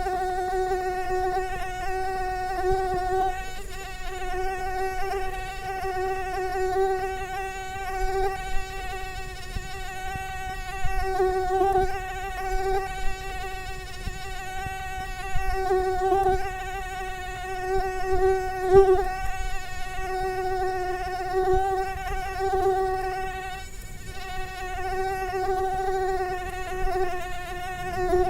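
Mosquito flying close by: the steady high-pitched whine of its wingbeats, the pitch wavering slightly and the loudness swelling and dipping now and then.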